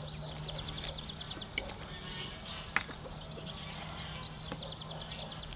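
Small birds chirping in quick, repeated trills, with two sharp clinks about a second and a half and nearly three seconds in, from a metal fork striking the glass serving plate.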